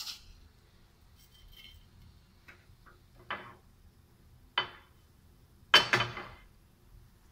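Mustard seeds popping in hot oil in a frying pan: a handful of scattered sharp pops, the loudest cluster near the end.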